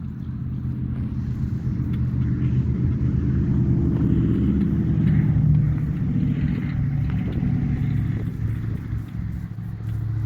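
A motor vehicle's engine running with a low, steady drone, growing louder toward the middle and easing off near the end.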